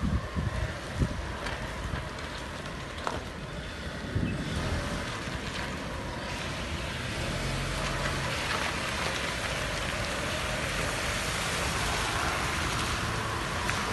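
A car's tyres swishing through shallow floodwater on the road, the hiss growing louder from about halfway through as the car comes close. A few low wind thumps on the microphone in the first second or so.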